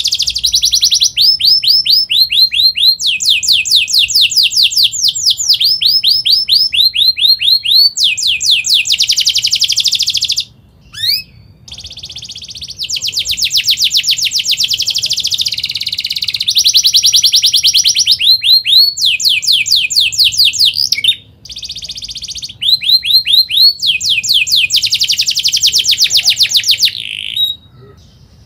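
Domestic canary singing a fast, tightly packed song: trills of rapidly repeated high notes that change phrase every second or two, with a few short breaks.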